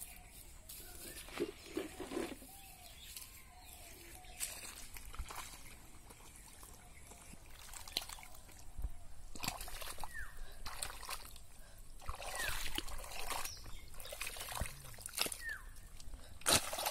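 Bare hands digging and scooping through wet mud and shallow water: irregular squelches, sloshes and trickles, busier in the second half.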